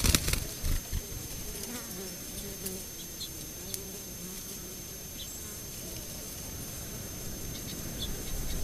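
A flying insect buzzing, its hum wavering in pitch, with a few light knocks in the first second.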